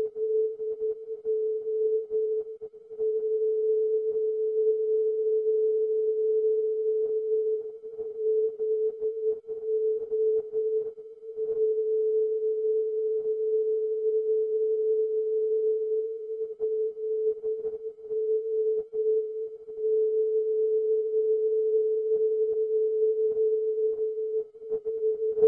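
Serbian aviation non-directional beacon ZO on 423 kHz, received by a software-defined radio in CW mode about 1,500 miles away: a steady whistling beat tone with brief breaks and fades, over faint crackling static.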